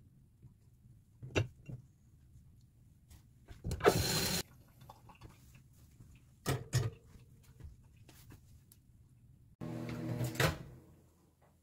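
Kitchen handling sounds as sliced gimbap is moved onto a ceramic plate: a few light knocks and clatters, with a short scraping rustle about four seconds in. Nearly ten seconds in, a louder rustling noise starts suddenly, then fades out.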